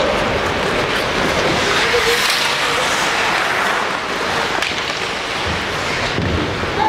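Ice hockey play on the rink: skate blades scraping and carving on the ice, heard as a steady noise with a short, sharper hiss about two seconds in.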